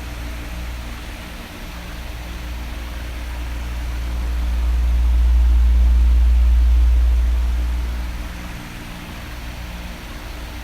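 Electric fan running with a steady rush of air and a faint low hum. Midway a low rumble swells up over a few seconds and fades back down.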